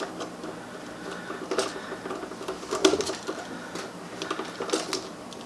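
Scattered light clicks, taps and scrapes of hands and tools working electrical wires, as two black wires are joined with a wire nut.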